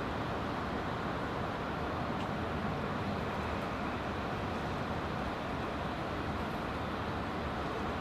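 Steady, even rumble of distant road traffic, with no distinct events in it.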